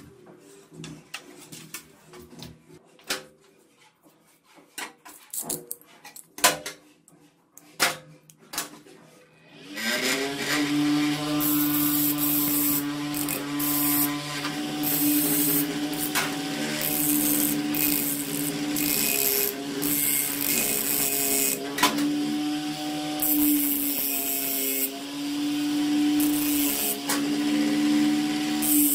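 Scattered clicks and taps, then a small cooling-fan motor fitted with an abrasive disc spins up about a third of the way in, its pitch rising and settling into a steady hum. A utility-knife blade and then a pair of scissors are ground against the spinning disc in repeated hissing, scraping strokes, throwing sparks.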